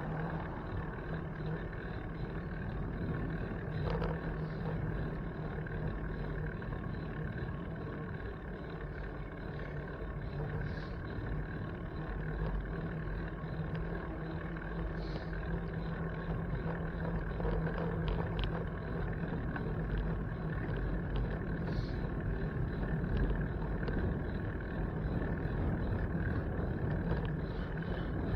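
Steady low rumble of riding noise, with road and traffic sound picked up while cycling, and a few faint clicks.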